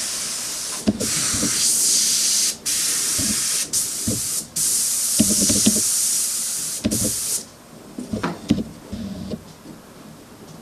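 Veda WD-182 airbrush hissing with compressed air, cut off briefly several times as the trigger is let go, then stopping about seven seconds in. A few light knocks and clicks of handling follow. The airbrush is not yet drawing paint up properly while its needle is being adjusted.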